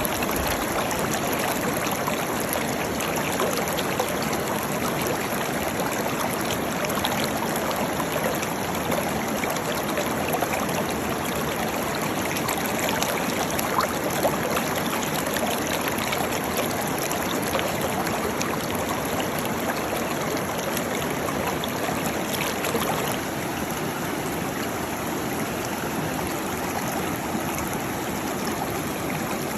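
Waterfall: steady rushing, splashing water with no break, a little softer over the last several seconds.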